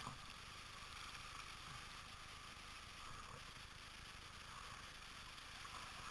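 Faint, steady rush of moving river water around a kayak.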